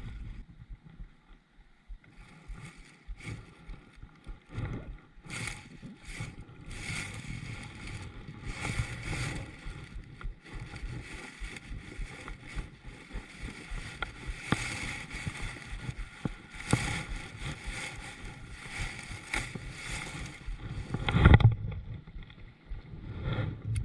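Kayak on the water: irregular splashing and small knocks against the hull, with one loud knock near the end.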